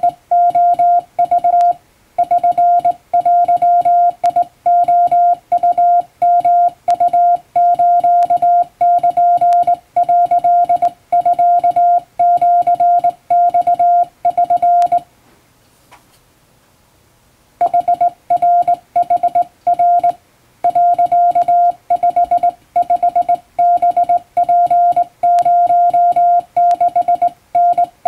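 Japanese wabun Morse code sent by hand on a straight key: a steady mid-pitched tone switching on and off in short dots and longer dashes. It stops for about two and a half seconds just past the middle, then the keying resumes.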